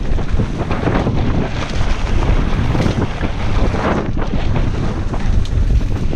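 Wind buffeting the camera microphone on a mountain bike riding fast down a dirt singletrack, over a steady rumble and irregular rattling from the tyres and bike on the rough trail.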